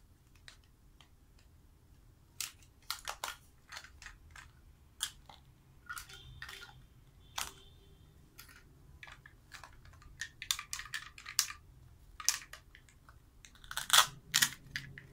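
Plastic toy play-food pieces being cut apart with a toy knife and handled: scattered sharp clicks and clatters, with a quick run of them partway through and the loudest knock near the end.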